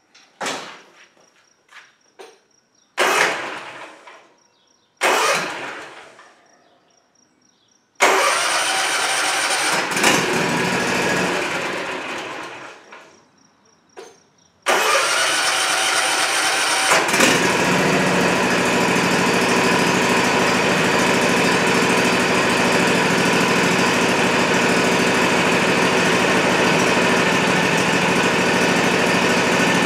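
Kawasaki FR691V V-twin engine on a Cub Cadet ZT250 zero-turn mower being started after an oil change. It runs briefly and dies more than once, then catches about fifteen seconds in and settles into a steady run, circulating the fresh oil through the filter.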